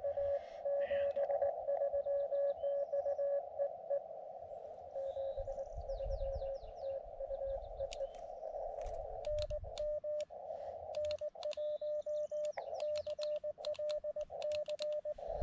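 Morse code (CW) from a portable ham radio transceiver: a single steady tone keyed in dots and dashes over a narrow band of receiver hiss. A fainter run of code comes a few seconds in, then a stronger run from about nine seconds on, with sharp clicks alongside it.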